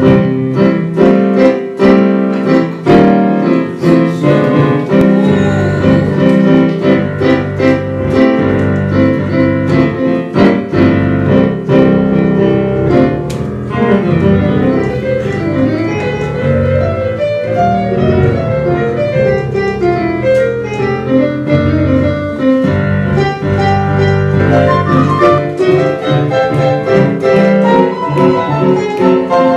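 Jazz piano improvisation played on a Doepfer stage keyboard with a piano sound: a dense, continuous stream of chords and quick melody lines.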